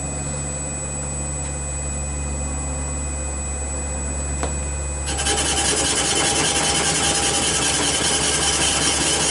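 A CNC cylinder boring machine runs with a steady hum and a constant high whine. About five seconds in, the boring tool starts cutting the next cylinder bore, a sudden, louder, steady rasping of metal being cut.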